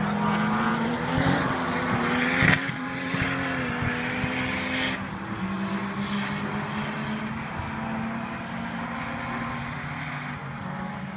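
High-revving engines of cars lapping a race circuit, heard at a distance. Several engine notes overlap, their pitch climbing under throttle and dropping back at gear changes. There is a sharp thump about two and a half seconds in.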